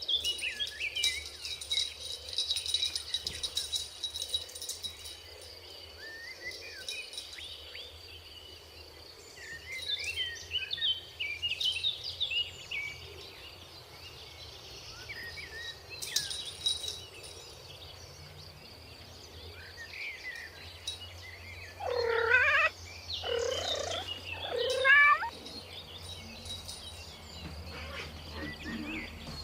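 Kittens mewing in many short, high calls, with a run of louder, lower meows about 22 seconds in.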